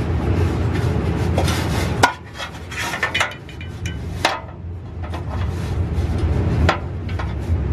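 A 2019 Nissan Sentra's downstream O2 sensor, just broken loose, is spun out of the exhaust pipe by hand. There is metallic rubbing and scattered clicks as the sensor and its wire connector knock against the pipe, with sharper clicks about two, three, four and nearly seven seconds in. A steady low hum runs underneath.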